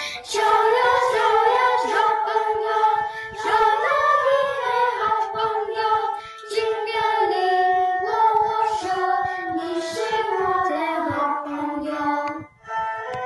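Children's choir singing together, a virtual choir mixed from separate home recordings. The singing stops about twelve and a half seconds in and a piano carries on alone.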